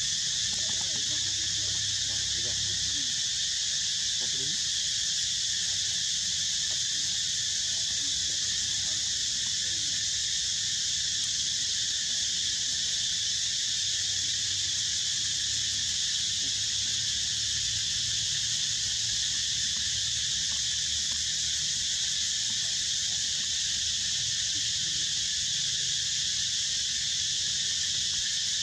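Steady, high-pitched drone of a chorus of insects.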